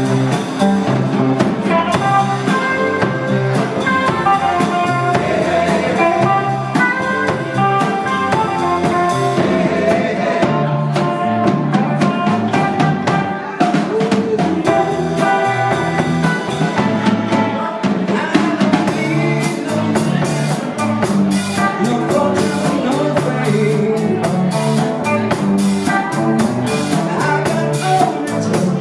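Live band playing vintage rock and roll, led by a drum kit with rimshots over steady pitched instruments. About two-thirds of the way in, the cymbals start playing more densely.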